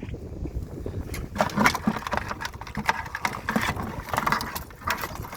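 Irregular clicks and scrapes of tongs grabbing at live blue crabs.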